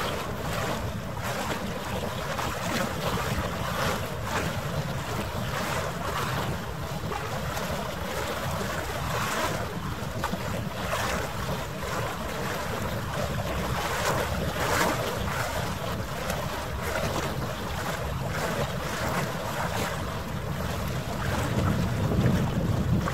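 Wind buffeting the microphone over choppy harbour water, with irregular splashes of waves lapping, all sped up nearly threefold.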